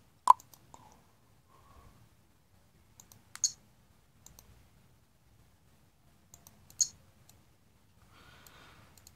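Computer mouse button clicks: one sharp click just after the start, then scattered single clicks and quick clusters of two or three, one cluster about three seconds in and another near seven seconds, with quiet between.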